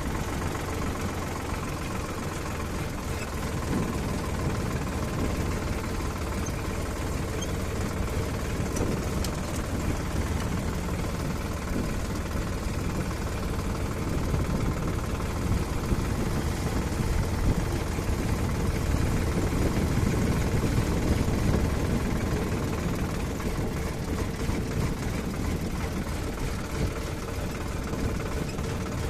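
Heavy vehicle engine running steadily, growing a little louder about midway through.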